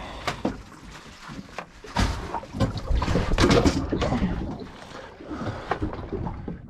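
Water splashing and sloshing, with scattered clicks and knocks from handling gear, loudest about halfway through.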